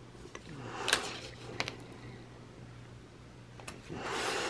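Quiet paper handling as a sticker sheet is laid and pressed onto a planner page: a couple of light taps, and a soft rustle near the end.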